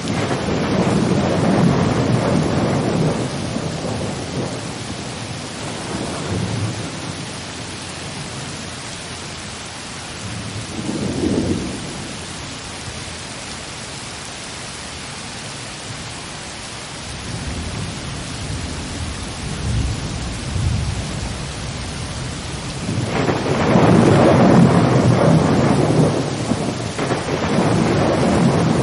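White-noise recording of a thunderstorm: steady rain hiss with rolls of thunder that swell and fade, the longest and loudest near the end.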